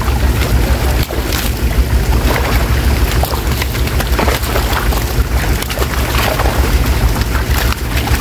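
Fish splashing and thrashing in shallow muddy water while men grab them by hand, many short irregular splashes over a steady low rumble.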